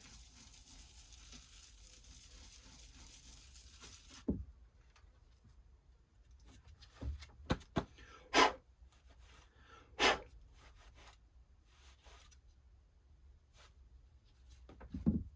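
Wet sandpaper rubbing on a plastic turn-signal lens: a few short, separate scrubbing strokes, the loudest about halfway through. A faint steady hiss under the first four seconds cuts off suddenly.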